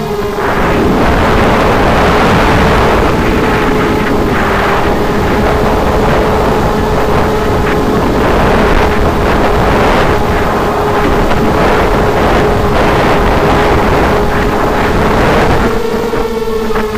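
ZMR250 mini quadcopter's brushless motors and propellers running, heard from the onboard camera as a steady whine under a heavy rush of air and wind over the microphone. The rush eases near the end, leaving the whine clearer.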